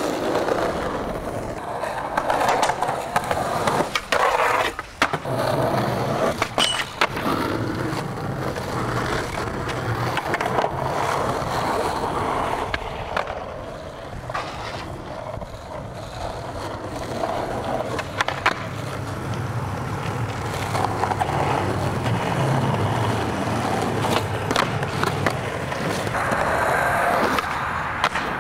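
Skateboard wheels rolling over asphalt and concrete, broken by sharp clacks of the board being popped and landing, repeated over several tricks.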